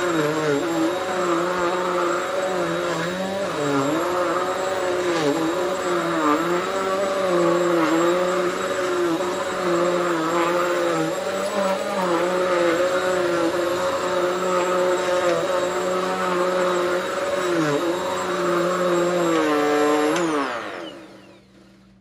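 Hoover Swivel XL Pet bagless upright vacuum cleaner running on a doormat with a good belt fitted, its motor pitch dipping briefly every second or two as it is pushed back and forth. About twenty seconds in it is switched off and winds down with a falling pitch.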